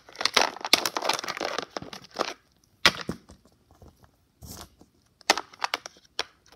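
Small plastic toy figures being handled and set down on a plastic playset: scattered taps and clicks with bursts of rustling, busiest in the first two seconds.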